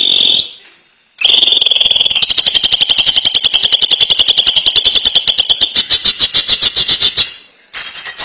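Cucak ijo (green leafbird) singing its ngentrok song. After a short opening call, about a second in it breaks into a long, very fast machine-gun-like rattle held at one high pitch for about six seconds. It stops briefly, and a new phrase starts near the end.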